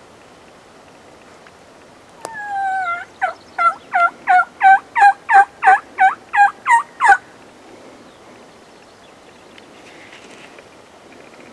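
Turkey yelping. One drawn-out falling note comes first, then about a dozen short, sharp yelps at roughly three a second, stopping abruptly.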